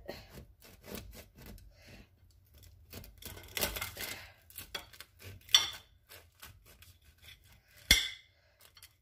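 A serrated bread knife sawing back and forth through a crusty baked roll, in short rasping strokes, while a fork holds it down. Twice in the second half the knife or fork clinks sharply against the plate.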